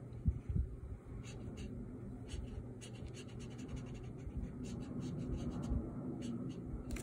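Ink marker scratching across paper in a quick series of short strokes, as lines are drawn on a figure's leg.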